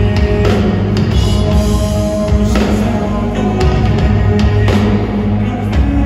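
Live metal band playing loud: distorted electric guitars and bass over a drum kit, with cymbal crashes about every two seconds, heard from the audience.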